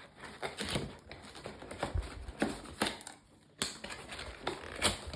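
Toy packaging box being torn open by hand: irregular crackling, snapping and rustling, with a brief lull a little past three seconds in.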